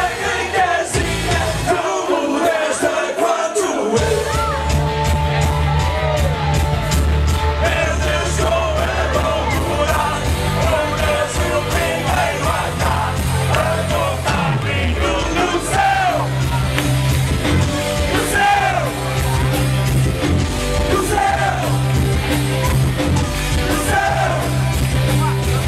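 Live rock band playing with a lead singer: electric guitars, bass, keyboard and drums, the bass and drums coming in about four seconds in after a lighter opening. Dancers in the crowd yell along.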